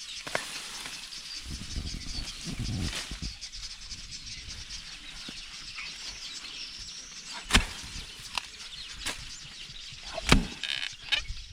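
Weeds and grass being cleared from the ground: a stretch of rustling, then a few sharp knocks of a tool striking the soil, two of them loud. Birds chirp steadily throughout.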